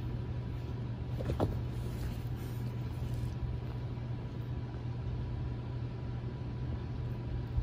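Steady low hum of room background noise, with a faint brief rising squeak about a second and a half in.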